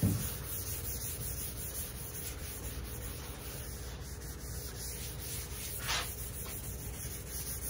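Sanding sponge rubbing back and forth over sealer on a car hood, a steady scuffing hiss with one louder stroke about six seconds in. The sealer is being lightly sanded smooth before the paint goes on.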